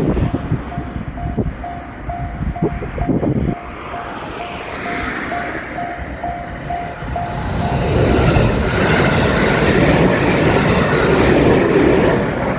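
Japanese railroad crossing signal ringing its electronic bell in a steady, even repeat of about two strokes a second. From about eight seconds in, a train passes over the crossing, and the louder run of its wheels on the rails covers the bell.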